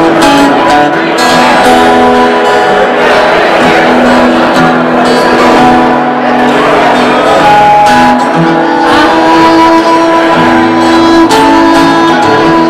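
Fiddle and acoustic guitar playing an instrumental tune together, the fiddle holding long notes over the guitar.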